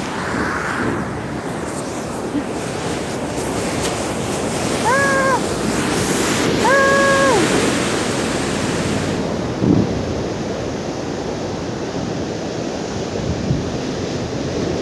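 Sea waves surging and breaking against shoreline rocks, a steady rush of surf with wind buffeting the microphone. Two short, steady horn-like tones sound about a second apart midway, and there is a single thump a little later.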